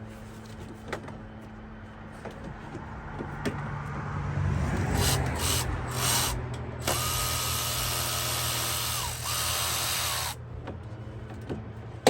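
Cordless electric ratchet running in two bursts, about two seconds and then one, with a steady whine, spinning out an AC compressor mounting bolt. Clicks and tool handling come just before.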